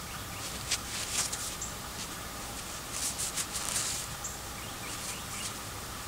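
Outdoor background with a faint, short, high-pitched chirp every couple of seconds, and rustling from a gloved hand handling a small object, thickest about three seconds in.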